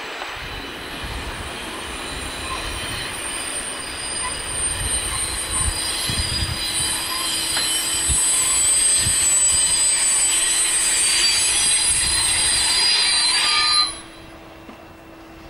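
A steam-hauled passenger train's wheels and brakes squealing as it slows, growing louder, over a rumble of running gear. The squeal cuts off suddenly about 14 seconds in as the train comes to a stand.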